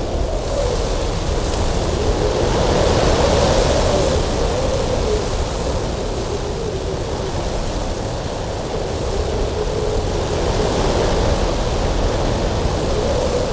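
Cold winter wind blowing steadily with a wavering low whistle, swelling into gusts with a rushing hiss a couple of seconds in and again later.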